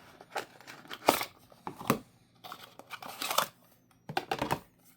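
Product box and its packaging handled in the hands: a string of short rustles, crinkles and scrapes, the loudest about a second, two seconds and three seconds in.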